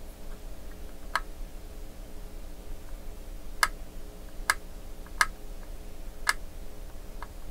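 Five sharp, short clicks, a hand tool tapping and pressing against a circuit board as a bare wire jumper is pressed flat, with a few fainter clicks near the end. A faint steady hum runs underneath.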